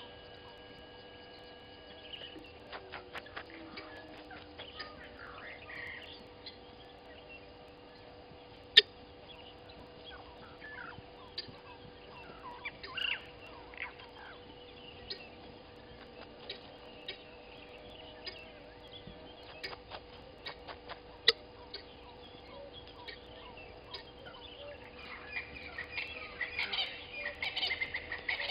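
Helmeted guineafowl scratching and pecking through dry elephant dung: scattered clicks and rustles, two sharp knocks about nine and twenty-one seconds in, and a dense scratching rustle near the end as dung is kicked up. Short bird calls come and go over a faint steady hum.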